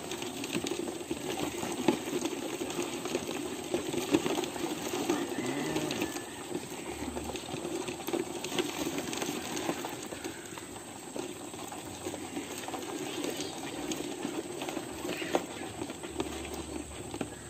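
Scattered small clicks and rustles from a crab being handled and tied with a dry leaf strip, over a steady low hum.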